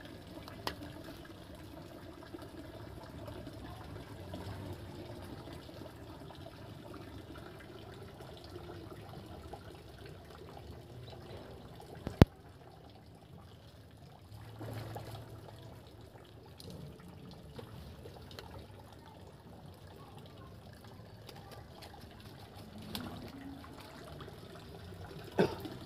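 Faint water trickling and splashing, with one sharp click about twelve seconds in.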